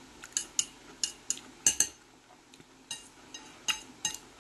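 Metal fork clinking against a plate as food is picked up: about ten sharp, ringing taps at uneven intervals, the loudest a little under two seconds in.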